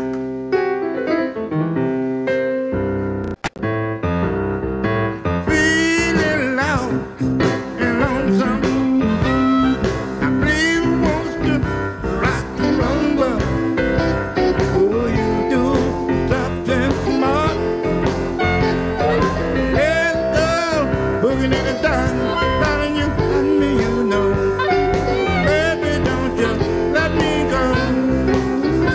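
Live electric blues band: a piano opens the number alone, the bass and drums come in about three seconds in, and from about five seconds the full band is playing.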